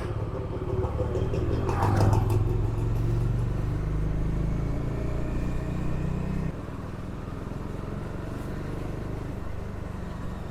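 Bajaj Dominar 400 motorcycle engine running while riding, a steady low hum that drops noticeably in level about six and a half seconds in, as when the throttle is eased off.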